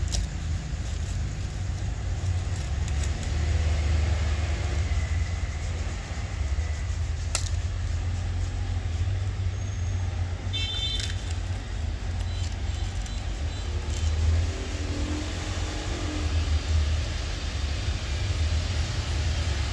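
Puppy chewing on a plastic bag and a dry leaf, with faint scattered crinkling and clicks, over a steady low rumble. A brief high chirp comes about eleven seconds in.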